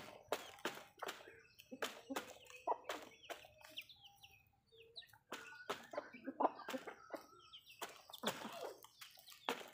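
Backyard chickens clucking as they feed, with brief high calls among them and many sharp clicks and taps throughout.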